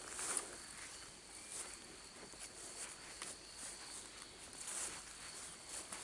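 Soft footsteps and rustling in grass and garden plants as someone walks slowly, with a faint steady high-pitched tone underneath. A slightly sharper rustle comes about half a second in.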